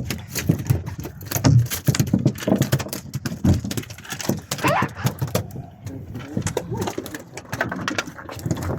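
Irregular knocks, clicks and thumps of handling on a fishing boat, with a short rising call a little before halfway.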